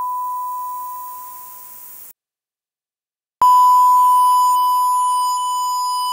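A sine-wave test ping, a pure steady beep, fading away over a high hiss of noise-shaped 16-bit dither, then cutting off about two seconds in. After a second of silence a second ping starts sharply, ringing with many faint extra tones and dropping in level in steps, typical of 16-bit truncation distortion without dither.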